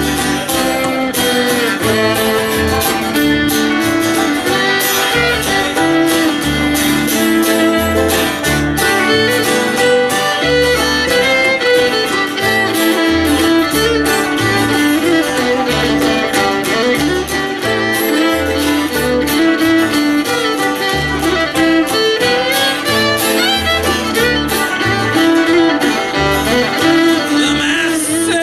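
Live acoustic string band playing an instrumental passage: banjo, acoustic guitar and upright bass, with a steady walking pulse of bass notes under the picking.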